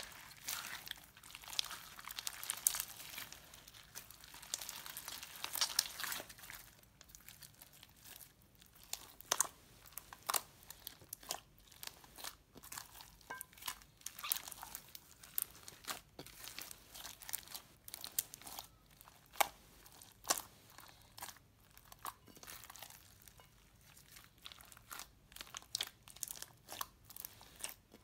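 Hands squeezing and kneading clear slime full of foam beads and water beads: a sticky crackling and popping. It is dense for the first six seconds or so, then thins to sharp, irregular pops and clicks.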